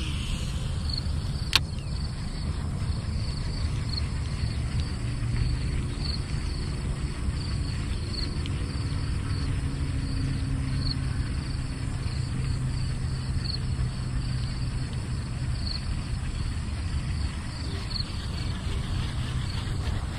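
Insects chirping in a faint, regular repeating pulse over a steady low rumble of outdoor background noise, with one sharp click about a second and a half in.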